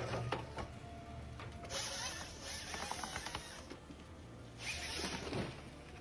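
Quiet background music under mechanical machine noise, which swells twice: for about two seconds near the middle and briefly near the end.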